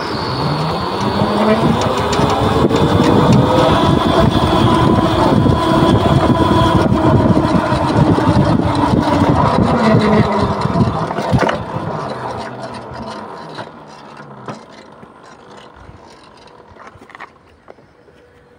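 QS138 70H electric motor on a bike, run by a PMC field-oriented controller, whining as the bike pulls away. The pitch rises over about three seconds, holds steady while cruising, then falls as the bike slows from about ten seconds in, along with road and wind noise. It fades to a faint hum near the end as the bike stops.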